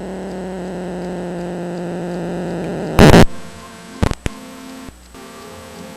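A faulty audio amplifier playing through its speaker: a steady buzzing hum over static for about three seconds, then a very loud burst of crackling noise, two sharp pops and quieter hissy sound. The amp has failing capacitors and is being tested with a capacitor held in place rather than soldered.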